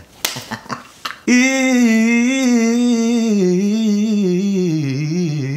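A few sharp clicks, then a male voice singing a fast, unaccompanied vocal riff on a held vowel, the pitch rippling quickly up and down through a run of notes. It is an attempt at a very hard riff that the singer rates about 96% there.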